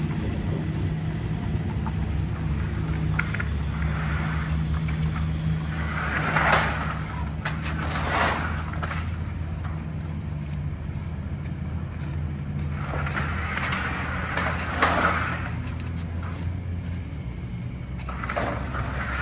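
Truck engine running steadily as a low drone, with swells of hiss every few seconds.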